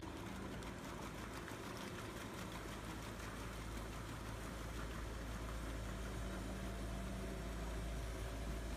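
Engine of a tracked amphibious vehicle running steadily as it drives through water, a low even hum that grows slightly louder.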